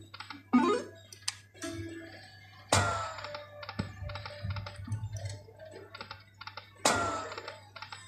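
Lightning Link poker machine game sounds: two spins about four seconds apart, each opening with a sharp electronic hit and a falling tone, followed by a run of quick clicking electronic tones, over a steady low hum.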